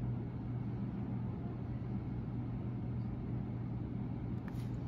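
Steady low hum of room background noise, with a brief faint click near the end.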